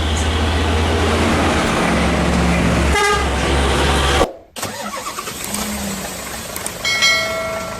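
Heavy trucks passing close on a highway, their engines giving a loud low rumble, with a short horn toot about three seconds in. The sound breaks off suddenly a little past four seconds, then quieter traffic follows and a horn sounds again, briefly, near the end.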